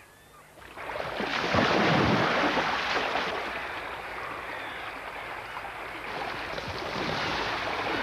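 Rushing water of a salmon river, a steady noisy wash that swells up about a second in and then runs on evenly.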